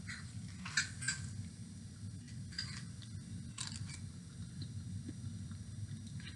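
Metal spoon scooping oatmeal from a ceramic mug: a few faint scrapes and clicks against the mug's side, spaced a second or so apart, over a low steady hum.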